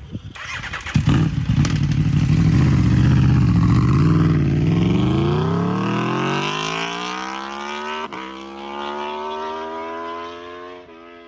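Aprilia RSV4 V4 sport bike with an Austin Racing GP1R slip-on exhaust accelerating hard past, loudest from about two to five seconds in. Its engine note then climbs steadily as it pulls away, broken briefly about eight seconds in and again near the end.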